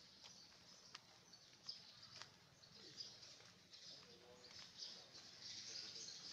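Near silence: faint outdoor ambience, a soft high hiss with a few light clicks.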